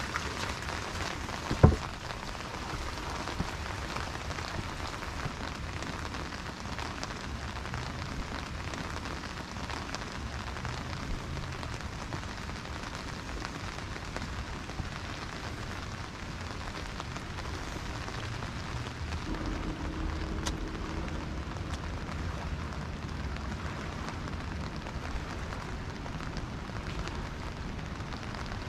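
Steady rain falling on wet ground and pavement, with one sharp knock about two seconds in.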